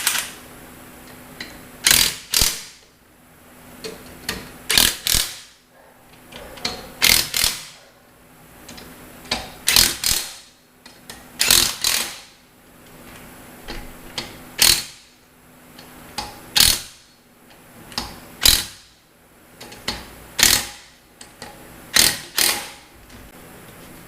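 Wheel's lug nuts being run down with a wrench: short bursts of mechanical rattling about every two seconds, often two close together.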